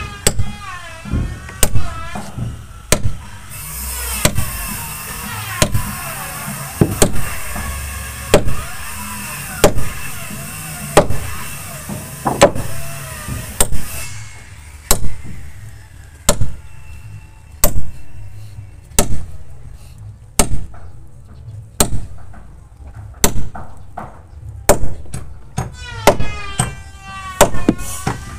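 Steady hammer blows, about one every second and a bit, on 10 mm iron rods being driven through the wooden hull planking of a boat to fix its frames to the keel.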